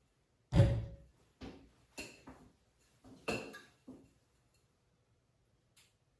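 A series of about six knocks and clinks as a stainless steel cocktail shaker is handled and tipped on a bar. The first knock, about half a second in, is the loudest and has a heavy low thud; another loud one with a slight metallic ring comes about three seconds in.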